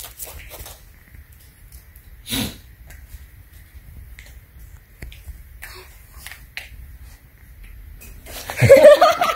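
Faint scratching and rustling of a kitten moving on a plastic-backed puppy pad, with one short sharp burst of noise about two seconds in. Near the end, a loud voice.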